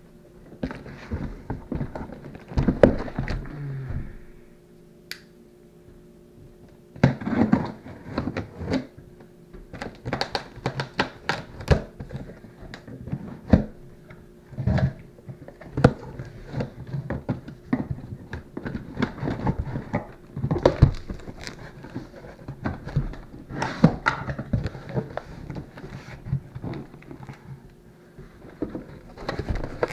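A large cardboard box being cut open and handled: a pocket knife slitting the packing tape, then the flaps pulled open, with irregular knocks, thunks and cardboard scraping and rustling throughout.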